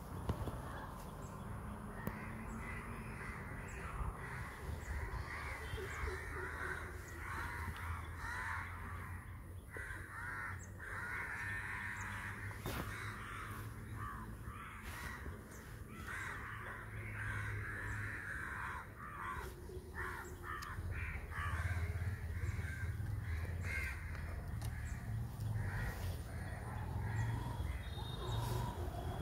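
Birds calling over and over, harsh repeated calls, over a low steady rumble that grows louder near the end.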